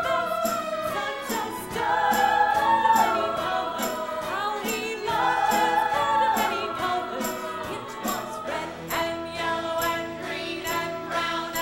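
Musical-theatre number: a cast ensemble singing in chorus over a band, with a steady beat running under the voices.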